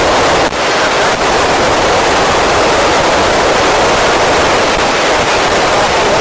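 Steady FM receiver hiss from an Icom ID-5100 transceiver's speaker, with the squelch open on the AO-27 satellite's 436.800 MHz downlink and no voice coming through, with two brief dips about half a second and a second in.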